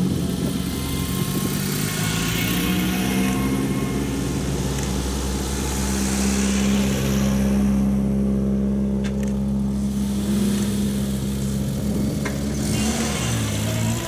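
Vintage cars' engines running as the cars drive slowly past one after another. Their steady hum shifts in pitch as each car approaches and passes, with a dip and rise near the end.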